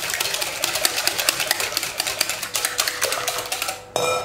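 Wire whisk beating a thin egg-and-milk batter in a glass bowl: fast, rhythmic clicking of the wires against the glass with liquid sloshing, stopping shortly before the end.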